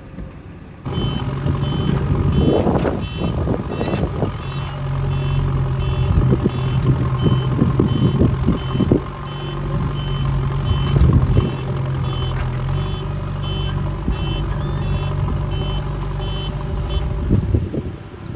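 Heavy diesel vehicle's engine running steadily while its reversing alarm beeps over and over, with scattered knocks and clatters. It all starts abruptly about a second in, and the beeping stops shortly before the end.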